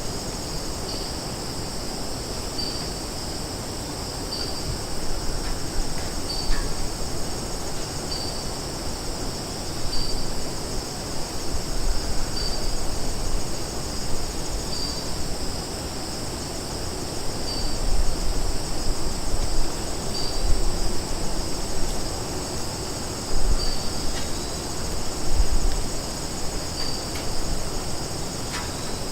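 Summer forest ambience: a steady high-pitched insect chorus, with a short chirp repeating about every two seconds and low rumbling that swells and fades.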